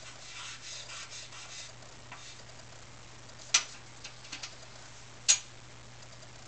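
Charcoal scratching and rubbing on drawing paper in quick short strokes for the first couple of seconds, then two sharp clicks nearly two seconds apart, the loudest sounds, with a few light ticks between them.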